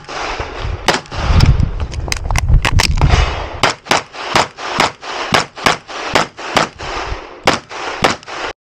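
Rapid 9×19 mm pistol fire from a Grand Power XCalibur: about twenty shots, mostly in quick pairs of double taps, each followed by a short echo, with a low rumble under the shots between about one and three seconds in. The firing stops abruptly near the end.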